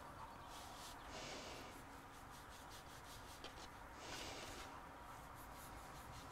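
Faint rubbing and light scraping of a knife cutting through soft bread dough and hands moving the dough pieces on a worktop, with two longer scrapes about a second in and about four seconds in and a few small ticks between.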